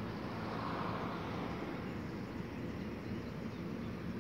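Distant SEPTA Silverliner IV electric commuter train approaching slowly, heard as a steady low hum and rumble under outdoor background noise.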